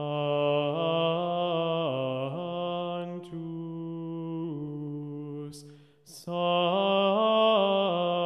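A low voice chanting slow, sustained notes that step up and down in pitch, with a short break for breath about six seconds in.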